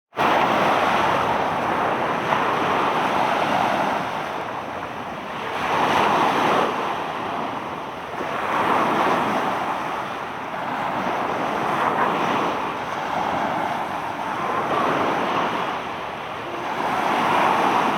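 Ocean surf: waves breaking and washing up the shore, swelling and fading about every three seconds.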